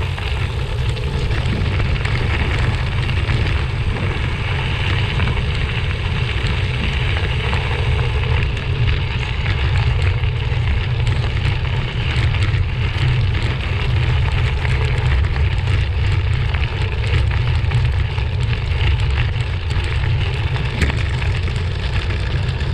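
A gravel bike being ridden at speed. Wind rumbles steadily on the microphone, over a constant crunch and rattle from the tyres and bike on the track.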